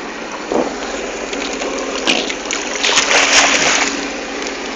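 Water splashing alongside a jet ski, loudest from about two to four seconds in, over the jet ski's engine running steadily at idle.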